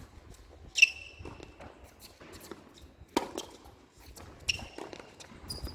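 Tennis ball strikes during play. A sharp racket hit with a short ringing ping comes about a second in, a duller knock follows just after three seconds, and another pinging racket hit comes about a second and a half later.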